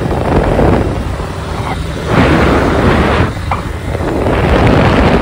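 Motorcycle riding at speed on an open road: wind rushing over the microphone in uneven surges, with the bike's engine running underneath.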